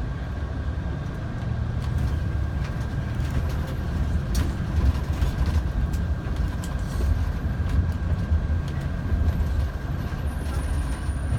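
Steady engine and road rumble from inside the cabin of a moving tour vehicle, with a few faint clicks and rattles.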